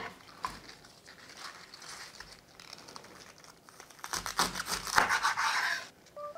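Crinkling and rustling handling noise, with a louder stretch of rapid crinkling about four seconds in, then a few short beeps at the very end.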